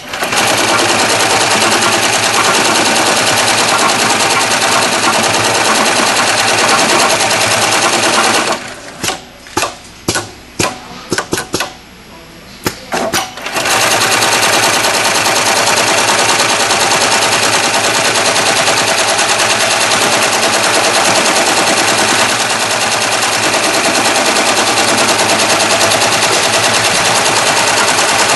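Kingmax PSM-5020 computerized heavy-duty pattern sewing machine stitching rapidly through thick sling webbing, a loud, fast, steady clatter. About eight seconds in it stops for roughly five seconds, with a few sharp clicks, then resumes stitching.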